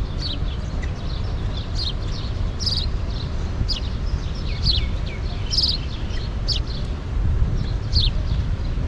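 Birds chirping, short high chirps about once a second, over a steady low rumble of wind on the microphone.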